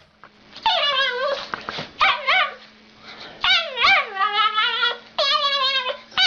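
A dog making about four drawn-out, wavering whining howls in a row, with short gaps between them, over a faint steady hum.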